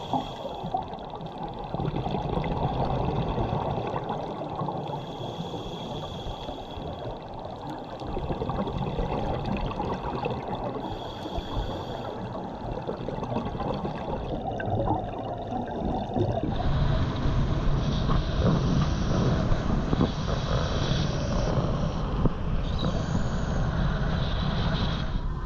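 Scuba regulator bubbles underwater: a steady rush of exhaled bubbles that swells twice. About two-thirds of the way in it changes to a motorboat running fast over open water, engine and water noise together.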